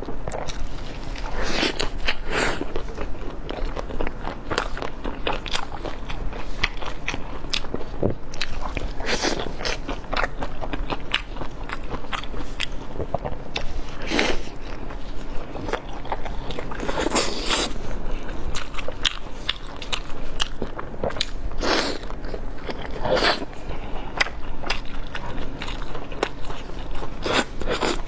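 Close-miked eating: repeated bites and chewing of crunchy food, with crackling crunches at irregular intervals.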